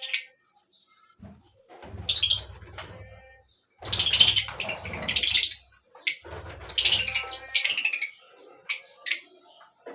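Small birds chirping and twittering in a series of bursts, busiest from a few seconds in.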